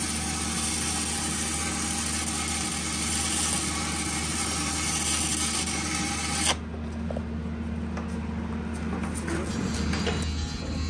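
Stick-welding (SMAW) arc hissing and crackling steadily as the electrode burns along a steel seam, with a low machine hum underneath. About six and a half seconds in the arc is broken and the crackle stops suddenly, leaving the hum and a few faint ticks.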